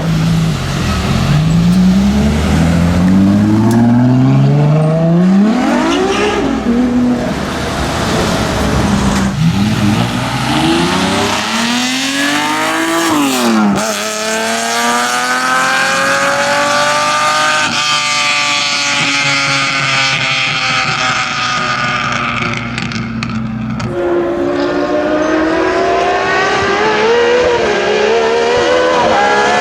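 V12 supercar engine accelerating hard, its pitch climbing through each gear and dropping at every shift: several quick upshifts in the first dozen seconds, then a long pull at high revs that ends in a sharp shift and another climb.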